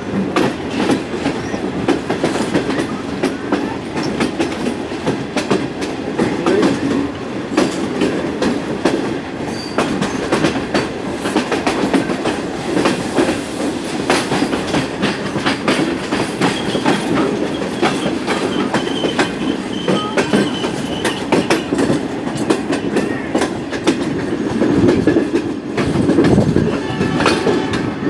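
Passenger train running at speed, heard from on board: a steady noise of the carriage with a constant clatter of wheels over rail joints.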